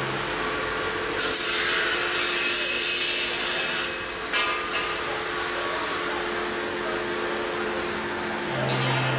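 Flatbed laminator's motor hum cuts out at the start and comes back on near the end. In between, a loud hiss lasts about two and a half seconds, followed by a brief quick rattle, over a fainter steady machine drone.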